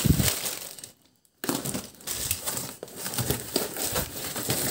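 Cardboard box and clear plastic wrapping crinkling and crackling as hands pull the parcel open, with a short break about a second in.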